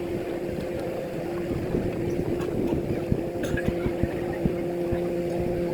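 A motor running at a steady, even pitch, with irregular short low thumps over it.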